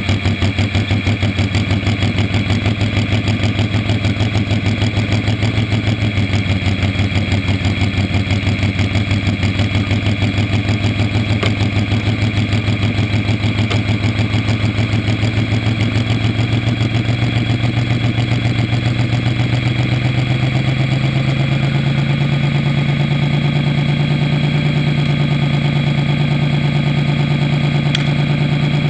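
Slingshot dragster's engine running at idle right beside the onboard microphone, with a rapid, even pulse. Its speed slowly creeps up over the last third.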